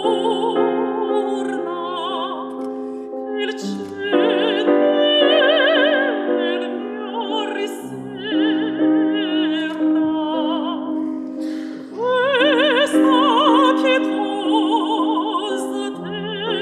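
Chinese art song: a female classical singer sings long, high phrases with wide vibrato to piano accompaniment.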